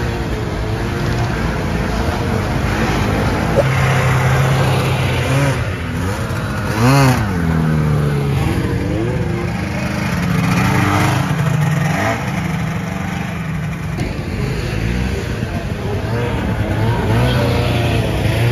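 Vintage Ski-Doo snowmobiles' two-stroke engines running and revving as the sleds pull away, the engine pitch shifting up and down. One rev rises and falls sharply about seven seconds in.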